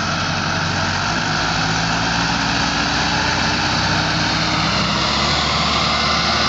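Massey Ferguson tractor's diesel engine working hard under a heavy load, pulling a loaded sugarcane trolley; the engine note rises slowly over a few seconds as it pulls.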